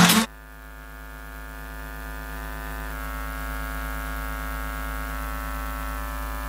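A brief loud blip right at the start, then a steady electrical buzzing hum with many overtones that slowly grows louder over the first few seconds and then holds steady.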